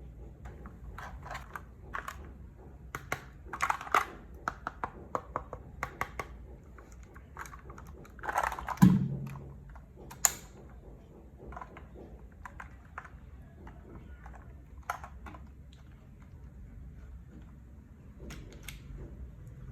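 Keys clicking on a HelloGanss HS87T mechanical keyboard with Gateron Yellow Pro switches. Keystrokes come in a quick run for the first several seconds, then sparser presses. One louder thump falls about nine seconds in.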